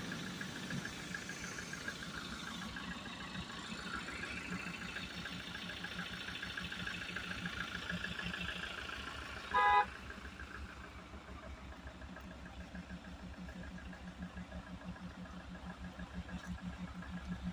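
A motor vehicle's engine runs steadily with an even pulsing beat. It is cut by one short horn toot about ten seconds in, the loudest sound.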